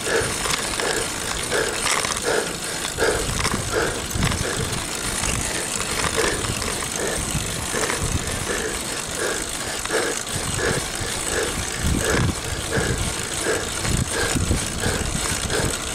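Road bicycle rolling along a paved road, heard from a handlebar-mounted camera: a steady rush of wind and tyre noise with the mount rattling. A short, squeaky sound repeats evenly about one and a half times a second throughout.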